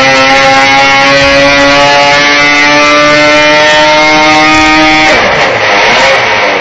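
DNE 1725 cc four-cylinder two-stroke snowmobile engine pulling at full throttle on a dynamometer without nitrous, its loud steady note climbing slowly in pitch. About five seconds in, at the end of the pull, the clean note breaks up into a rough, noisy sound.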